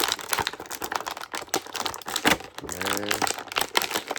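Irregular crinkling and clicking of plastic packaging as small clear plastic guards are pulled off a toy action figure's parts.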